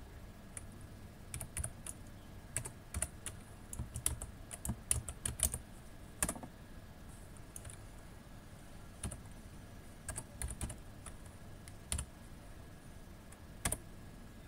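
Typing on a computer keyboard in quick bursts of key clicks, with a short pause midway. There is a louder single key press about six seconds in and another near the end, as commands are entered.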